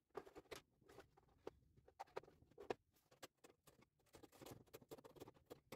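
Faint, scattered clicks, taps and light scrapes of hand-tool work: a plastic chisel case being handled and set down, and a hand chisel being worked against wood.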